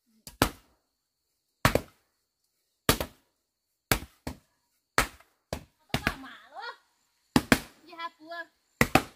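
Wooden plank pounding loose earth to tamp it down along the base of a wall: single dull thuds about once a second, at an uneven pace. A voice speaks briefly between strokes.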